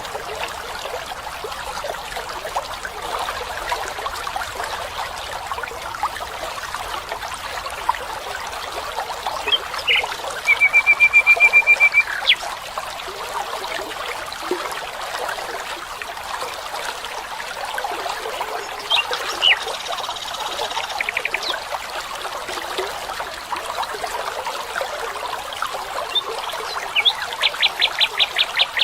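A stream trickling steadily, with short rapid trilled animal calls: one about ten seconds in, a few chirps near the middle, and another trill near the end.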